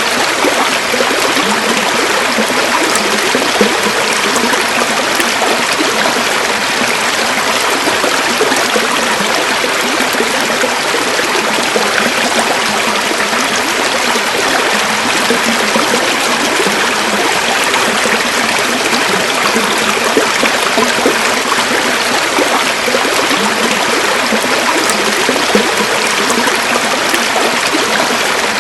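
River water flowing over stones, a steady babbling rush.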